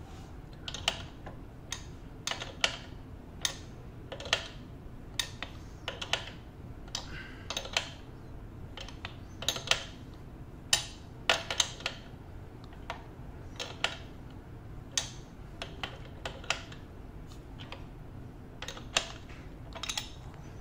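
Irregular sharp metal clicks and clacks, about one or two a second: a wrench and pedal working as the left pedal of an electric bike is unscrewed from its crank arm.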